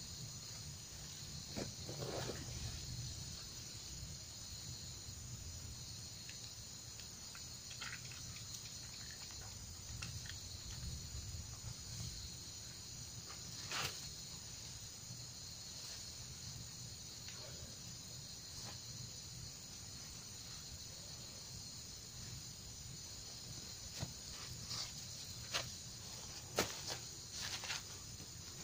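Steady chorus of insects chirring, with a few scattered clicks and knocks: a sharp one about halfway through and several close together near the end.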